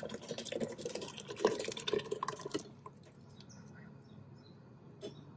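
Thick blended chili paste pouring from a blender jug into a pot of fish stock, splashing and glugging for about two and a half seconds, then trailing off to faint drips as the jug empties.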